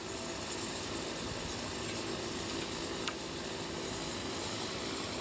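Steady outdoor background noise: an even hiss with a faint low hum, and a single light click about three seconds in.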